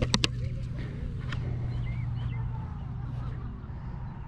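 Handling noise from a handheld camera being lifted off the grass: two sharp knocks right at the start and another about a second later, over a steady low rumble, with a few faint high chirps.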